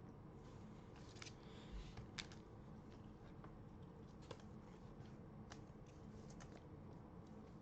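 Faint rustling and scattered light clicks of trading cards and their packaging being handled, over a low steady room hum.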